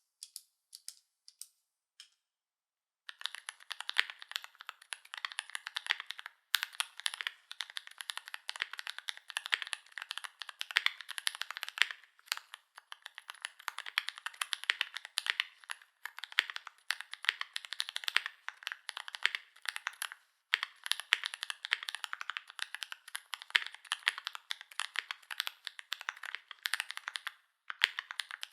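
Fast, continuous typing on a GMMK Pro custom mechanical keyboard with lubed Holy Panda tactile switches, an FR4 plate and GMK keycaps: a dense run of key clicks, with a few brief pauses. A few single keystrokes come in the first two seconds before the typing starts in earnest.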